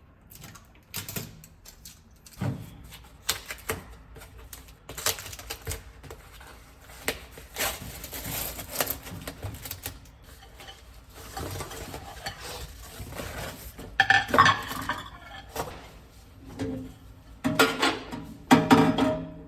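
Hard objects clinking and clattering as they are handled: a run of irregular knocks and clinks, busiest and loudest in the last few seconds.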